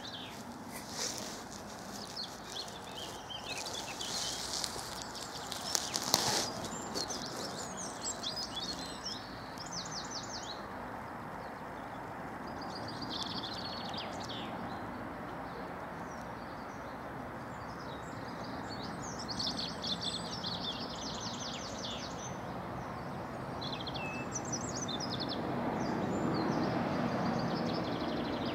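Small songbirds singing in short, repeated chirping phrases, over a steady outdoor background hiss that grows louder near the end. A few short knocks come in the first six seconds.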